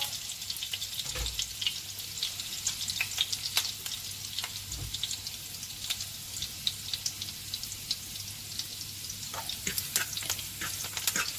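Chopped hot pepper and garlic sizzling in hot oil in a frying pan, with fine crackling spits throughout. Two soft low thuds, about a second in and near five seconds.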